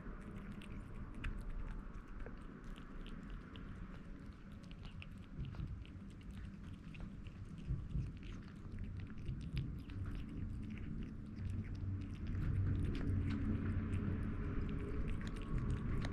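Kitten eating canned wet cat food, a rapid run of small, wet chewing and smacking clicks.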